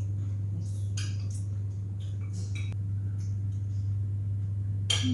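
Cutlery clinking and scraping on plates and bowls as people eat at a table: scattered light clicks, with a louder clink near the end. A steady low hum runs underneath.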